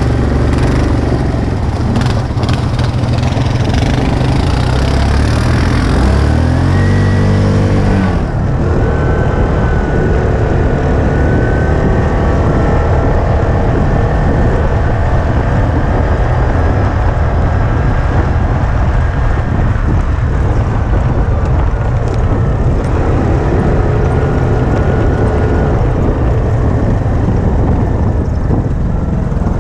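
Vehicle engine running under way with steady road noise; about six seconds in the revs climb for roughly two seconds, then drop off suddenly.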